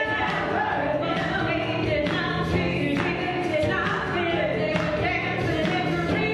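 Gospel choir singing, many voices together in sustained, gliding sung lines.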